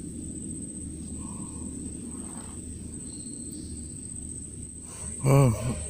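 Insects trilling in one steady high tone over a low, even background hiss. About five seconds in comes a short, louder burst of a man's voice.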